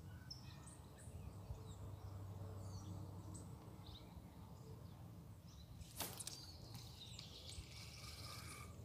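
Faint scattered bird chirps over a low steady hum, with a single sharp click about six seconds in.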